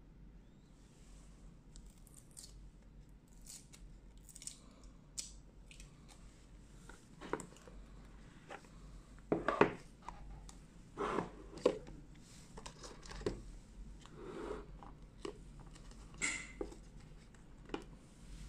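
Hands unboxing a phone: a seal sticker peeled off a cardboard box, then the box opened, the phone tray lifted out and a paper leaflet handled. Scattered taps, scrapes and paper rustles, loudest in a few knocks about halfway through.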